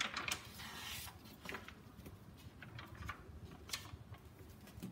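Paper handling as a picture book is opened and its pages turned: a short paper swish near the start, then faint rustles and light clicks.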